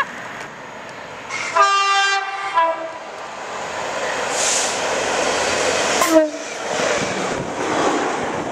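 Freight locomotive sounding its horn, a single blast of about a second starting a second and a half in. This is followed by the steadily rising rumble of the locomotive and its container wagons running through the station at speed.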